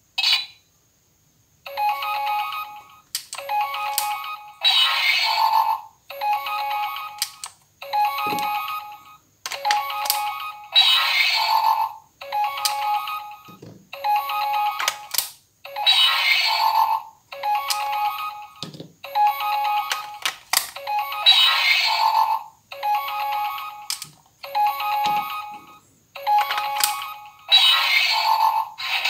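Auldey DX Rescue Driver toy's built-in speaker playing a rapid series of short electronic jingles and sound effects, about one every second or so, with sharp button clicks between them and no bass.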